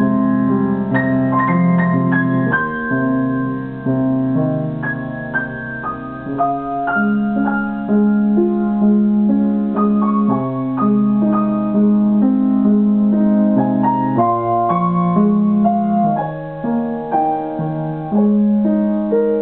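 Instrumental music: held chords over a low sustained note, with a melody of notes changing every second or so.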